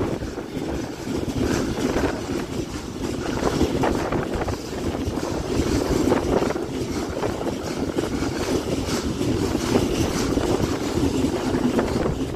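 Freight train of pocket wagons carrying lorry trailers rolling past close by: a steady rumble of steel wheels on the rails, with scattered knocks from the wheels and wagons.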